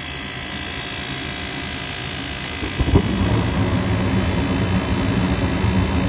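Goodman gas furnace's draft inducer motor running with a steady whir and high whine, sounding like it has seen better days. About three seconds in, a click and the gas burners light, adding a steady low rush of flame.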